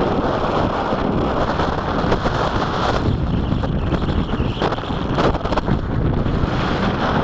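Strong gusty winter wind buffeting the microphone, a loud rumbling rush that swells and eases with the gusts.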